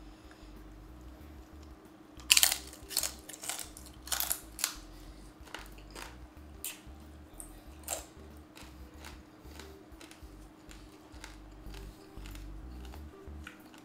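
Close-up crunching and chewing of crispy roasted pig-head skin (lechon). Loud crisp crunches come in a cluster starting about two seconds in, then thin out to softer, sparser chews, over a faint steady hum.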